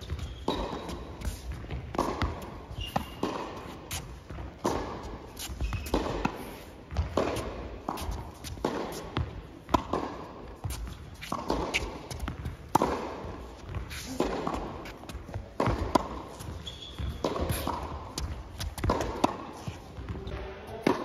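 Tennis ball rally in the service boxes on an indoor hard court: rackets striking the ball and the ball bouncing, a hit or bounce about every second, each echoing in the large hall.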